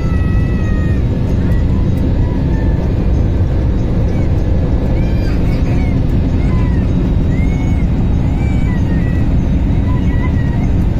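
Steady roar of jet engines and rushing air heard inside an airliner cabin during a low descent, loud and unbroken, with faint short high-pitched sounds from the cabin on top.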